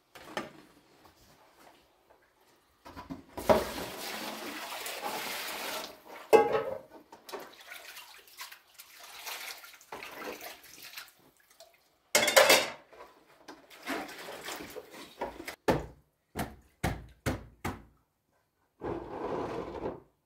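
Water pouring and splashing in a plastic basin during washing by hand, with clatter of pots and utensils and a quick run of sharp knocks in the second half.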